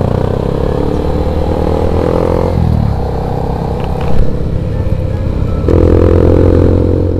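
Motorcycle engines running under throttle while riding, with wind noise. The engine note holds, drops back about two and a half seconds in, and rises louder again near the six-second mark.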